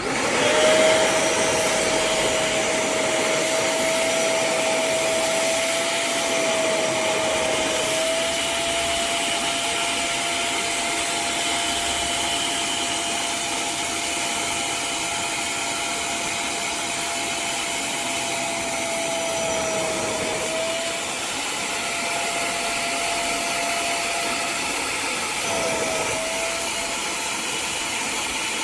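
Hoover CleanSlate portable carpet spot cleaner switched on and running steadily, its suction motor giving a constant whine that dips briefly a few times.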